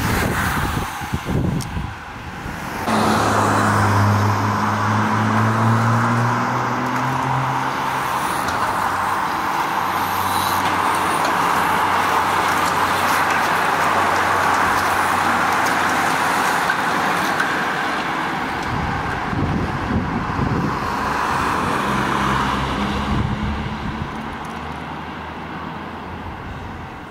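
A motor vehicle's engine running over steady road noise, its low hum rising slightly a few seconds in and coming back briefly later.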